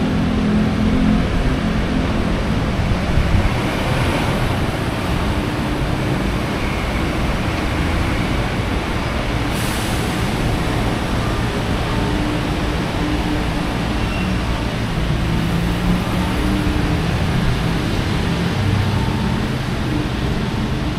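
Heavy typhoon rain and wind, a loud, steady rushing noise with a low hum underneath.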